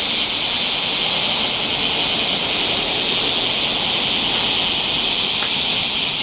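Bear cicadas singing loudly: a steady, high, shrill buzz that pulses rapidly in places.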